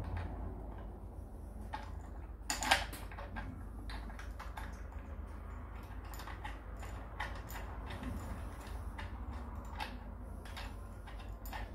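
Steel roller chain and sprockets clicking and rattling as the drive is worked by hand, with one sharper metal clack about two and a half seconds in.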